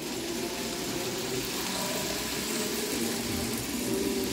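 N-scale model of a BB304 locomotive, fitted with a European-made motor, running at full controller speed: a steady motor whir with the wheels running on the rails.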